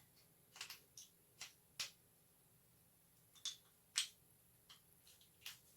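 A key being worked in an antique padlock's keyway, pushed in against the internal spring and turned: about nine short, sharp metallic clicks and taps at uneven intervals, the loudest about four seconds in. The lock is not yet opening.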